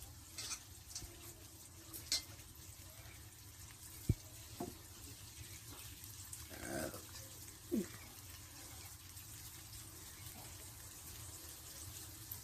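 Faint steady sizzling of egg curry cooking in a karahi on a gas burner, with a sharp click about four seconds in and a couple of short calls that fall in pitch around seven and eight seconds in.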